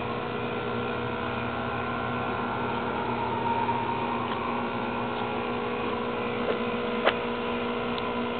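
Steady hum of several fixed tones over a low whirring noise, with a single short click about seven seconds in.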